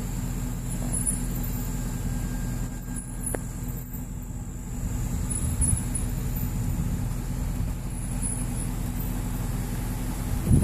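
A steady low mechanical hum, like a motor or an idling engine running nearby, with faint high-pitched chirps now and then.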